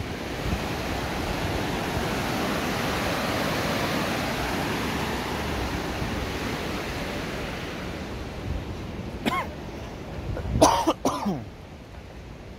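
Steady rush of a fast-flowing river running beneath a stone bridge. Near the end come a few short vocal sounds, like coughs or calls; the loudest pair is the loudest thing heard.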